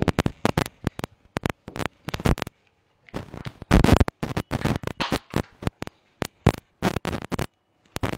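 Handwriting: a quick series of short, sharp scratching strokes, with a few longer scratchy strokes about three to five seconds in.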